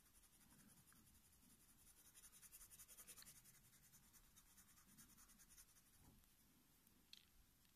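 Faint scratching of a coloured pencil shading on drawing paper in quick repeated strokes, swelling a little midway, with one light tick near the end.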